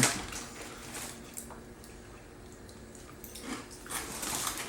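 Faint crunching and mouth sounds of someone chewing hot and spicy cuttlefish crackers, with scattered small clicks, a little busier near the end.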